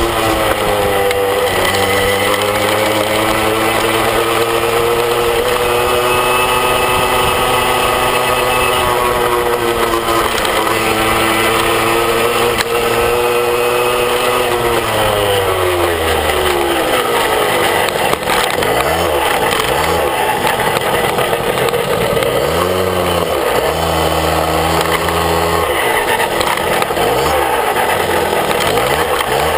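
Small moped engine running under way at a steady speed. About halfway through, its pitch drops as it slows. After that it rises and falls in a series of short revs.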